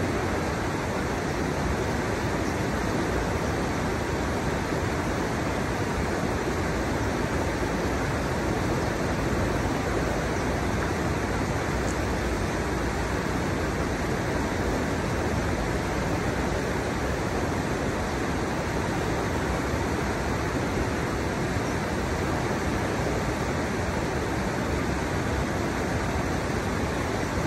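River water pouring over a stepped riverbed, a steady, unbroken rush.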